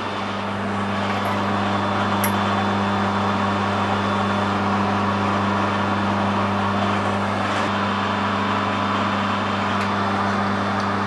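Steady electric hum and whirr of workshop machinery running, a constant low mains-frequency drone with a faint hiss above it.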